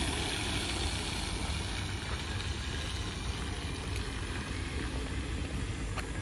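Steady wind rumbling on the microphone over an even hiss of light rain on wet paving, with a single small click near the end.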